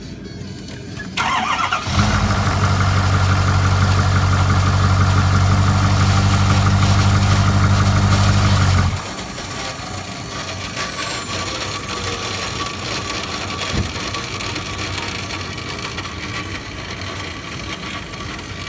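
Ford 6.7L Power Stroke V8 turbodiesel being cranked and starting about a second in, then running loud and steady for about seven seconds. The sound drops off sharply about nine seconds in, leaving a quieter running noise with a faint falling whine. The engine's turbocharger has failed internally.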